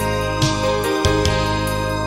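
Instrumental electronic music: soft keyboard chords held over a low bass, with new notes entering a few times.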